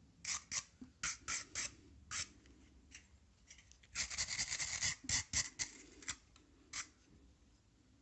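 Short, sharp scraping strokes on a rusty metal tool being cleaned, with a quick run of them lasting about a second about four seconds in.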